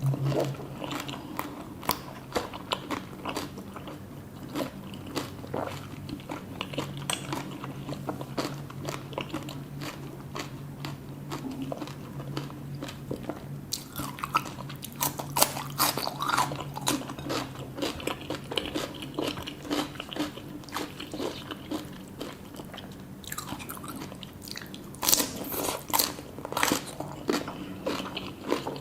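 Close-up eating sounds: a person biting, chewing and crunching food, with many small crisp clicks that come thickest in two spells, about halfway through and near the end.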